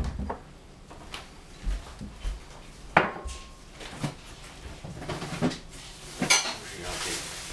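Kitchen dishes and utensils clinking and knocking as a dressing is being prepared: a handful of separate knocks, the loudest about three seconds in with a brief ring after it.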